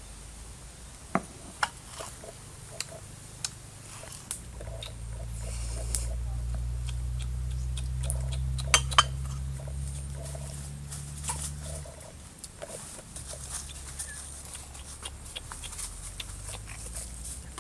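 Sharp knocks and clicks of food preparation at a stone mortar as chili paste is mixed and handled, the loudest a close pair about nine seconds in. A low steady hum sits underneath from about four to twelve seconds.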